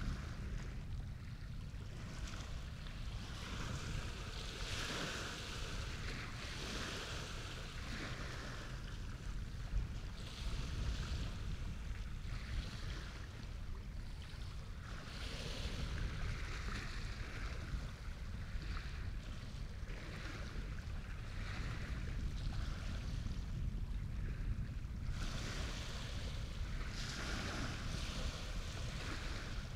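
Wind rumbling on the microphone over the wash and splash of waves, which swells and fades every few seconds and grows stronger near the end.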